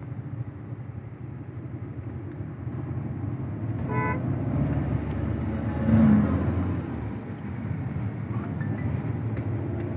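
Steady engine and road rumble heard from inside a moving car's cabin, with a short vehicle horn toot about four seconds in and a louder swell of low rumble around six seconds.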